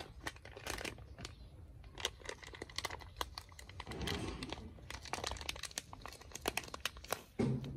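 Irregular crinkling and crackling with many sharp little clicks, as of something brittle being handled, and a louder dull thump near the end.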